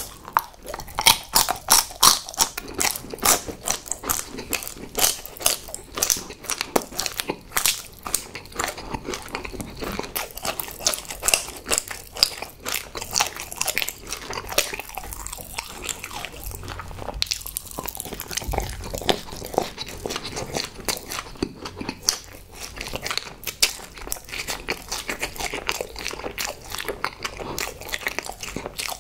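A person chewing chocolate sweets in the mouth, with crisp crunching of the chocolate in the first dozen seconds, then quieter chewing.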